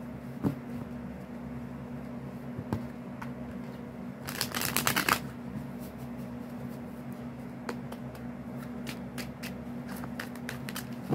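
A deck of tarot cards shuffled by hand: light taps and flicks of the cards, with a dense riffle of about a second some four seconds in and a run of quick card flicks near the end.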